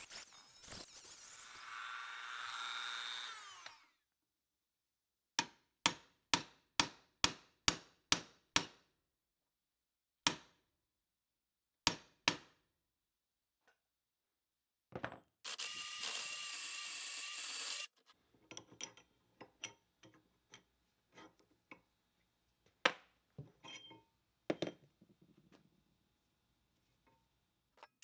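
Small handheld rotary tool grinding down the end of a rusty steel pin on an old mechanical floor jack, stopping about four seconds in. Then a run of about eight sharp strikes on metal, two a second, a few more single strikes, a three-second burst of power-tool grinding, and scattered knocks and clicks near the end.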